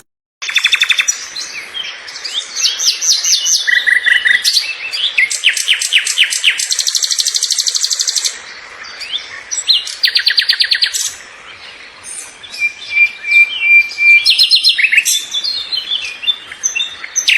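Several birds singing and calling: fast repeated trills and chirps, and a held whistled note, beginning after a brief silence about half a second in.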